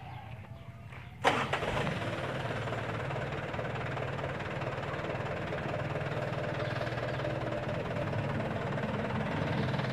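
A light dump truck's engine comes in suddenly about a second in, with a loud first burst, then keeps running steadily.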